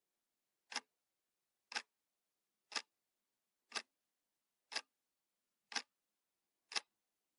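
Faint, sharp ticks at a steady one per second, seven in all, like a clock ticking, with silence between them.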